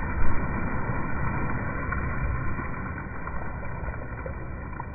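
Swimming-pool water splashing and churning where a person has just jumped in, with a brief louder splash just after the start, then gradually settling down.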